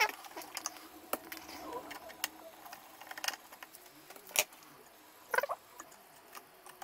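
Light clicks and taps of a small cover plate and its fixings being handled and worked off the circuitry of a Radiac Survey Meter No 2. There is a sharper click about four and a half seconds in and a short rattle of clicks a second later.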